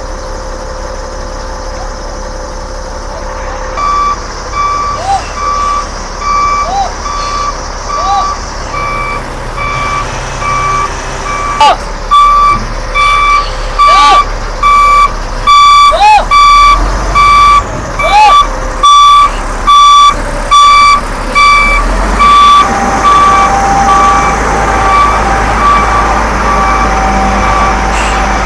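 Reversing alarm of a construction machine beeping steadily, about one to two beeps a second, over the low running of its diesel engine. The beeping starts a few seconds in, grows loud midway and then eases off as the machine backs away.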